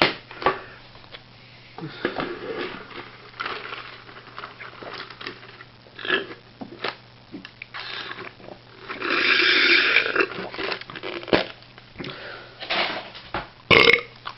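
A man burping, with one long, loud burp about nine seconds in among shorter, quieter sounds.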